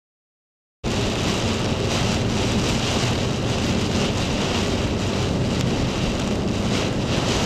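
Strong hurricane wind buffeting the microphone, a steady rushing noise heavy in low rumble, that starts suddenly about a second in.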